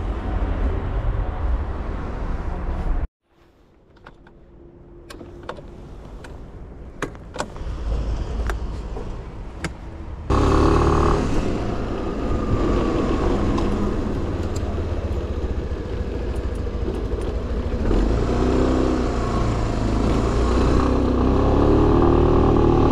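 Large scooter's engine running as it rides away, with wind rushing over the microphone; this loud rumble comes in abruptly about ten seconds in. Before that there are a few sharp clicks over a quieter background.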